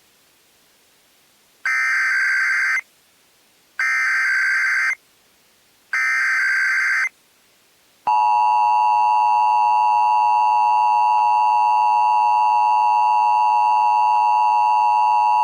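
Emergency Alert System tones for a severe thunderstorm warning: three short bursts of the digital SAME header data, each about a second long and about two seconds apart, then the steady two-tone EAS attention signal starting about eight seconds in.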